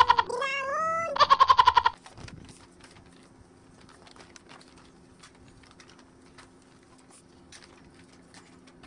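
A loud, high-pitched wail in rapidly pulsing bursts, partly gliding in pitch, that stops about two seconds in. After it only a faint steady hum with light scattered ticks is heard.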